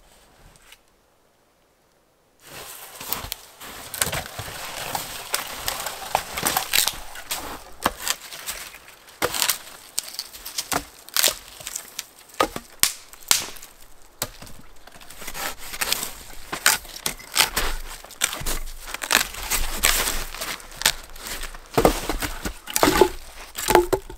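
Wood being broken up by hand: irregular cracking, snapping and crunching. It starts after a short silence about two seconds in and keeps on without a steady rhythm.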